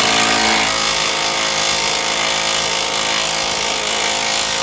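Impact wrench running continuously, hammering steadily on a fastener.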